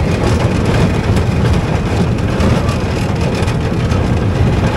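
Theme-park ride in motion heard from aboard: a steady, loud rumble.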